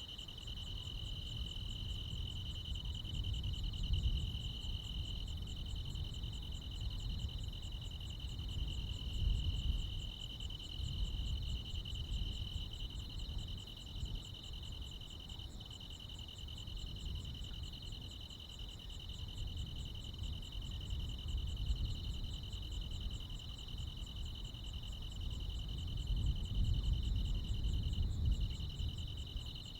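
Chorus of crickets and other insects trilling continuously, one steady high trill with a faster, rapidly pulsing chirp above it. A low rumble swells and fades underneath.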